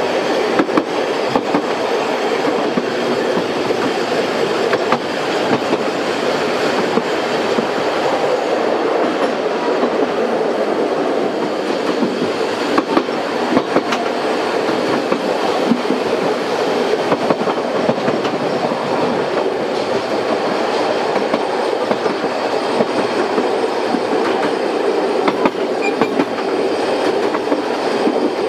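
Coaches of a 750 mm narrow-gauge steam train running along the track, heard from inside a carriage: a steady rolling rattle with frequent irregular clicks from the wheels on the rails.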